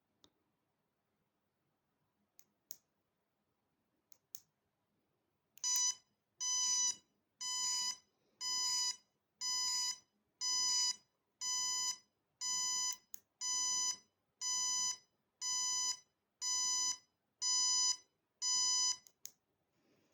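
A few button clicks, then the electronic beeper of a remote-controlled bicycle taillight sounding a steady run of shrill beeps, about one a second, each just over half a second long.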